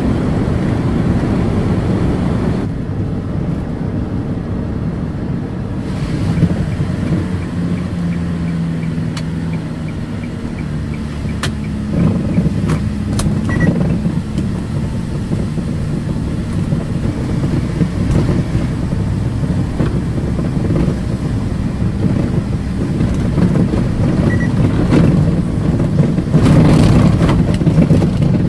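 Car driving, heard from inside the cabin: a steady rumble of engine and tyre road noise with a few scattered clicks. Near the end it grows louder and rougher as the car moves onto a rough dirt road.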